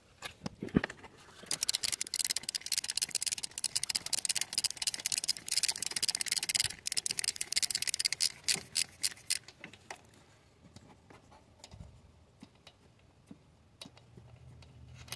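Dense, rapid clicking and scratching for about eight seconds, then only a few scattered light clicks: close handling noise during work on an engine's throttle body.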